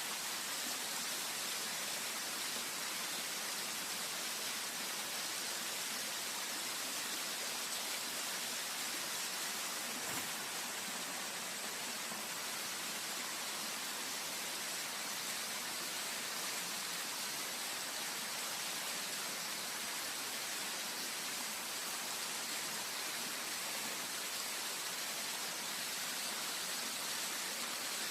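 Steady rushing of river water, an even hiss with no change in level, with one faint knock about ten seconds in.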